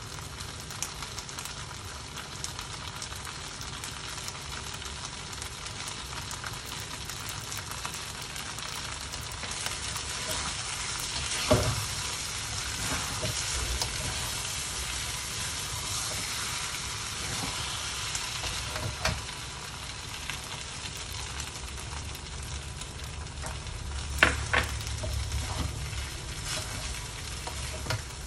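Flat rice noodles sizzling as they are stir-fried in a steel wok. The hiss grows louder around the middle, and a metal spatula scrapes and knocks against the wok a few times.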